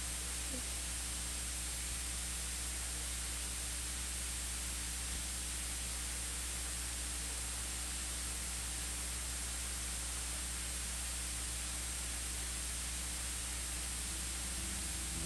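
Steady hiss with a low electrical mains hum underneath: the background noise of the recording or sound system.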